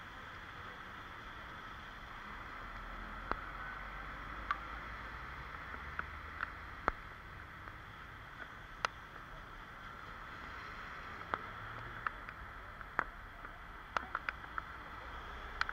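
Rain on a wet street: a steady hiss broken by sharp, irregular ticks of drops striking near the microphone, over a faint low rumble of passing traffic.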